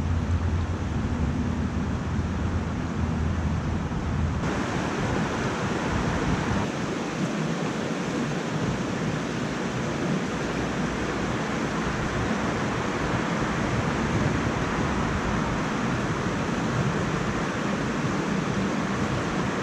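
Small mountain creek's water rushing steadily over rocks. A low wind rumble on the microphone in the first few seconds drops away about four seconds in, leaving a fuller, even rush.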